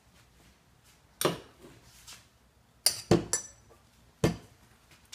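Metal hand tools and fittings clinking as they are handled and set down on a workbench: one sharp clink about a second in, a quick run of three near the middle, and another about a second later.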